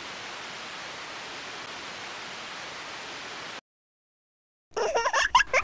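Steady static hiss, a white-noise sound effect, that cuts off suddenly about three and a half seconds in. After a second of silence, a quick cluster of short, louder bright sounds comes near the end.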